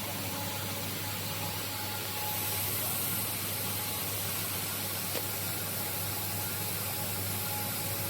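Steady running noise of a CNC woodworking machine: an even hiss over a low motor hum, with the high hiss growing louder about two seconds in and a small click about five seconds in.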